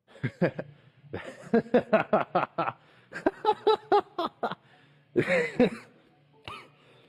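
Laughter: quick, pitched bursts of voice in several bouts.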